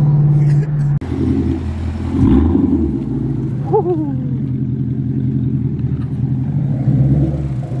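Straight-piped 2018 Ford Mustang GT's 5.0 V8, no mufflers and an X-pipe, running with a steady low exhaust drone as the car rolls off slowly.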